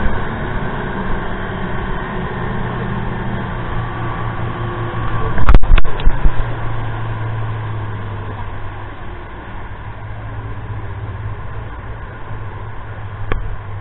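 Speedboat engines running steadily under way, heard from inside the passenger cabin, with a loud thump about five and a half seconds in. In the second half the engine note settles lower and quieter.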